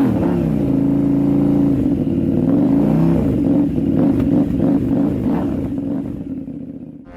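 KTM 890 Duke R's parallel-twin engine through an Arrow aftermarket exhaust, revving up and back down twice, then dying away near the end.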